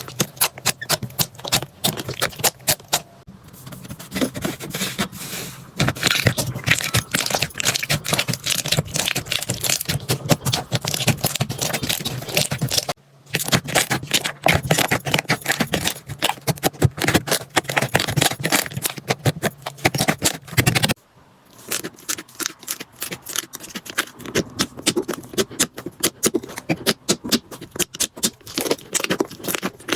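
Slime being squeezed, poked and stretched by hand close to the microphone, giving dense, rapid crackling and popping clicks. The sound breaks off briefly twice, about 13 and 21 seconds in.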